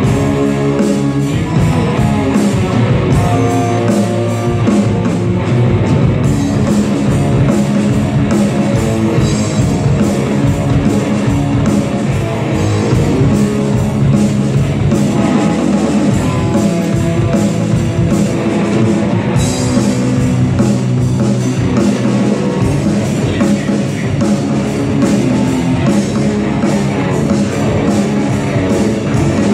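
Live rock band playing loudly and without a break: electric guitars over a driving drum kit.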